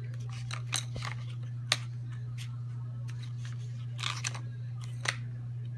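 A steady low hum, with a few sharp clicks and scrapes of colored pencils and paper being handled on a coloring book.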